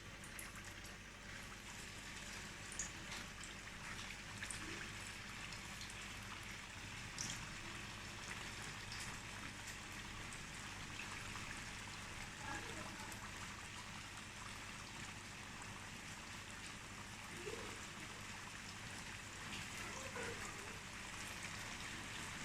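Steady rain falling, an even hiss with scattered drips ticking.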